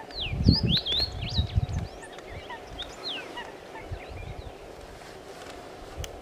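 Male scarlet rosefinch singing a short phrase of quick rising and falling whistles in the first two seconds, with a single falling note about three seconds in. Low rumbles of wind on the microphone sit under the song.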